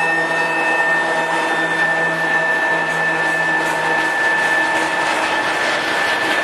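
2TE116 twin-section diesel freight locomotive passing with a steady engine drone and whine that fades over the first few seconds as it moves away. This gives way to the rumble and rhythmic wheel clatter of freight hopper wagons rolling by.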